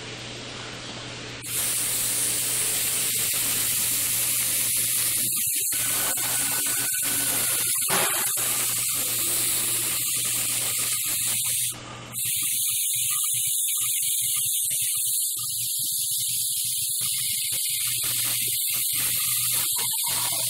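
Airbrush spraying paint: a steady high hiss of air. It starts about a second and a half in, cuts out briefly past the middle, and then runs on.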